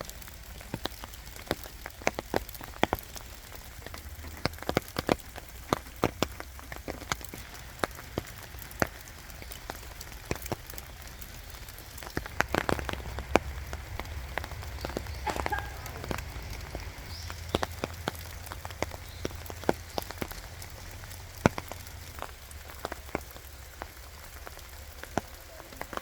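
Rain falling, with many sharp, irregular drop taps close by over a steady hiss.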